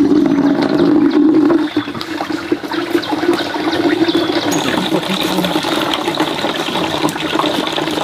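Water running steadily from a bamboo pipe spout, a continuous pouring and splashing.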